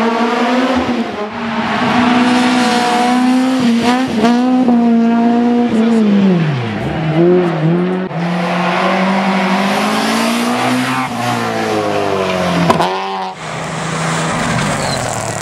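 Race car engines running hard at full throttle, revs climbing and then dropping sharply with quick gear changes. Near the middle the revs fall away and pick up again, as on a lift or downshift for a bend. The sound changes abruptly near the end.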